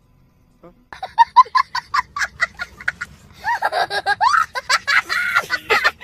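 A person laughing hard: a fast run of short high bursts, about five a second, starting about a second in, then longer wavering laughing sounds.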